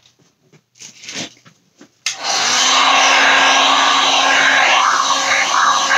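Heat gun switched on about two seconds in and running steadily over wet resin: a loud rush of air with a low steady hum beneath it. A few brief handling rustles come before it.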